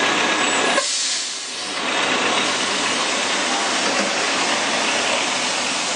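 Charter coach buses pulling in close by: a steady hiss over their engine noise, with a brief dip in the lower sound about a second in.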